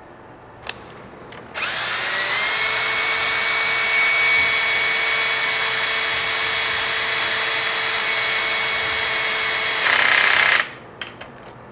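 Ridgid power drill spinning a bit on a bolt of a screen printing press print head. The motor whines up to speed, runs steadily for about eight seconds, changes pitch and grows louder just before it stops, and a few small clicks follow.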